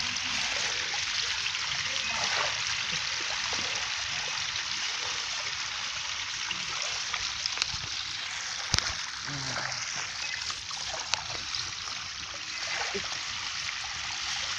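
A dense shoal of gulsha catfish feeding at a pond's surface: a steady hiss of many small splashes, with a few sharp clicks around the middle.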